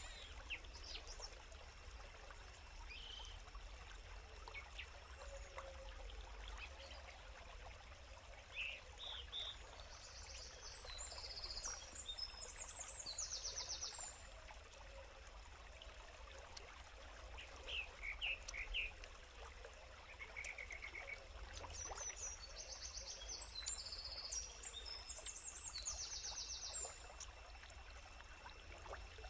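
Birds singing: short high chirps and a high phrase ending in fast trills, heard twice about ten seconds apart, over a faint steady rush of stream water.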